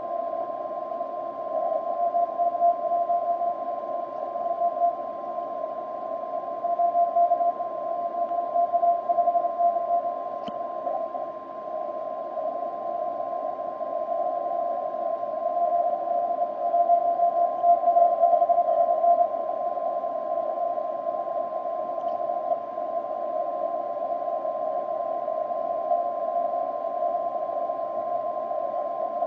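Elecraft K3 transceiver receiving on the 10-metre CW band: hiss through a narrow filter with a weak Morse signal that swells and fades. A steady whistle sits just above it.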